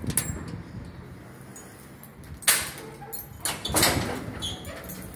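Heavy black steel street door being opened, with a click as it starts. A sharp metal bang comes about two and a half seconds in, followed by more knocking a second later.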